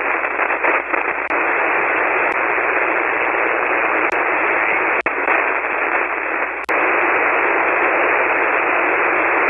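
Single-sideband receiver hiss: steady band noise on an open 40-metre channel with no station transmitting, held to a narrow voice band. There are a few faint clicks, a brief dropout about five seconds in, and a short dip just before seven seconds.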